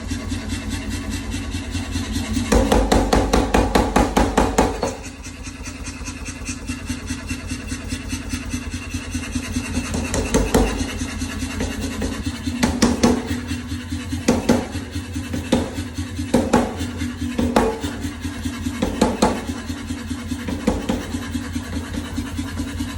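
A 20 kg (45 lb) blacksmith power hammer running with a fast, even run of strokes. From about two and a half to five seconds in it strikes harder and louder, and later it lands a string of separate heavier blows.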